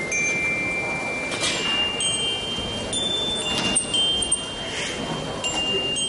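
Glockenspiel playing a slow sequence of single high, ringing notes, about one a second, each still sounding when the next is struck. A few soft swishes come through underneath.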